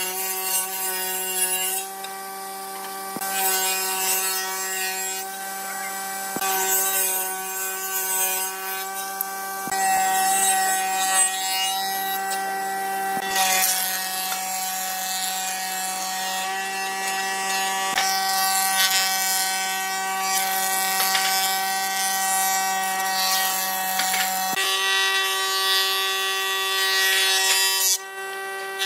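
Thickness planer running with a steady motor hum, with repeated louder passes as its cutterhead shaves boards fed through it.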